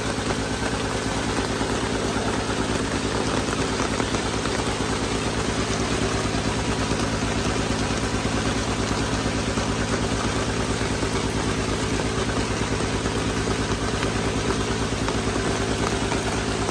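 An engine idling steadily, with an even low throb that does not change.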